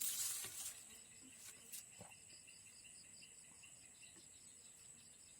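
Insects calling: a steady high-pitched drone with a rapid, even pulsing chirp running under it. A short burst of rushing noise at the very start is the loudest moment, and a few faint clicks follow about two seconds in.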